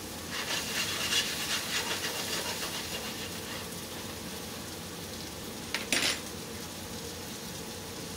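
Handling noises at a kitchen counter: light rustling and clicking for the first few seconds, then one short sharp clatter about six seconds in, over a steady background hiss.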